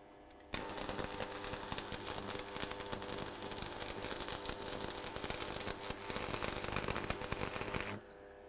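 Manual stick-electrode arc welding: the arc crackles steadily for about seven and a half seconds. It is struck about half a second in and broken near the end, over a steady hum, while a repair weld is laid on a broken steel pin.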